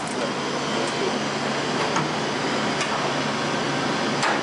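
Heidelberg Quickmaster DI 46-4 Plus four-colour offset press running: a steady mechanical hum with a few faint ticks now and then.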